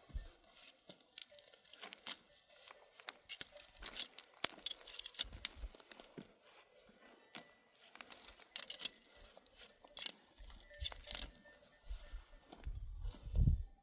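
Dry grass being torn and crunched by hand, with irregular crackles and snaps throughout. Gusts of wind rumble on the microphone near the end.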